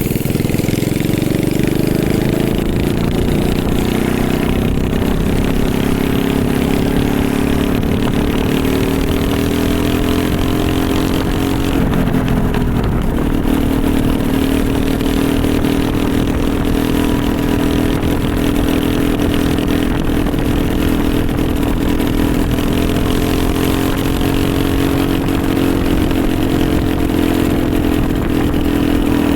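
Small pressure-washer engine powering a homemade mini bike, running steadily while ridden, its speed rising and falling gently, with a brief drop in revs about twelve seconds in before it picks up again.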